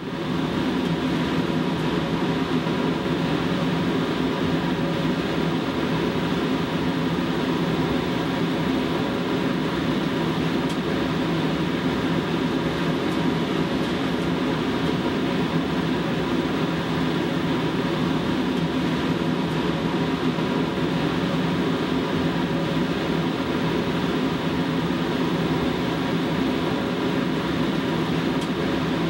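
Steady, unchanging mechanical hum of an empty shelter kennel room, with no barking or other animal sounds.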